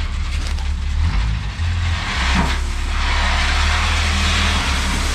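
Dump truck engine running with a steady low rumble while gravel pours out of the raised bed, a rushing hiss that swells about two and a half seconds in.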